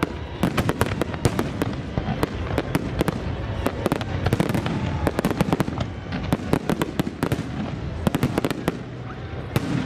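Fireworks display: a dense barrage of aerial shell bursts, many sharp bangs a second in quick succession over a steady rumble.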